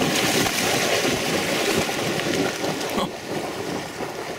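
Pond water splashing and churning as a hunting dog plunges and swims through it on a retrieve. The splashing is loud at first and eases off about three seconds in.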